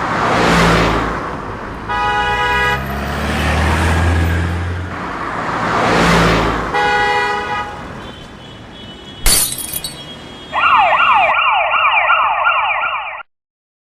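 Cars whooshing past with two car-horn honks, then a sharp crash about nine seconds in, followed by a fast, repeating wailing siren that cuts off abruptly near the end.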